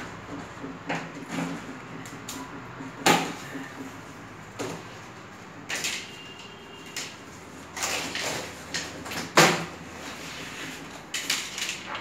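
Hands handling a large cardboard refrigerator carton: scattered knocks and scraping on the cardboard, with a sharp knock about three seconds in and another near the nine-second mark.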